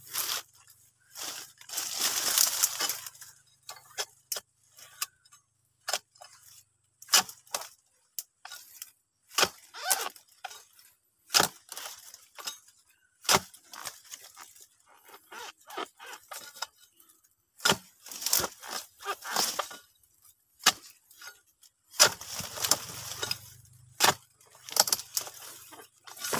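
A long-handled harvesting tool chops at the frond bases and bunch stalks of a young oil palm. There are many sharp, irregular knocks and cracks, some coming in quick clusters, and twice a longer rustle of dry fronds being pushed aside.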